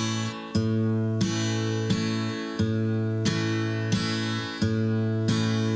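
Background music: an acoustic guitar strumming chords at a steady pace, about three strums every two seconds.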